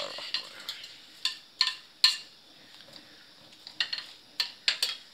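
Steel ladle clinking and scraping against an aluminium kadai as sliced onions are stirred in a little oil: a run of sharp metal clinks, a pause of about a second around the middle, then more clinks.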